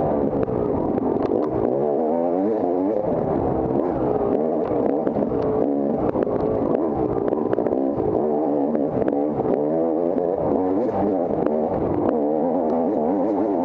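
Off-road motorcycle engine revving up and down without pause as it is ridden hard through a race course, with scattered clicks and knocks over it.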